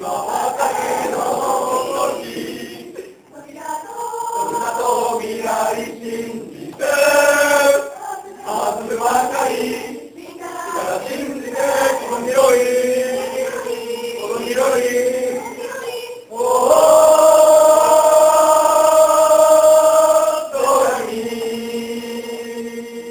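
A mixed choir of men and women singing. Near the end the choir holds one long, loud chord for about four seconds, then carries on more quietly.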